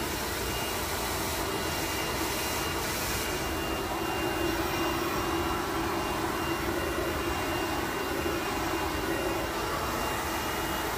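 Handheld hair dryer blowing steadily while hair is dried over a round brush: an even rush of air with a thin, high motor whine.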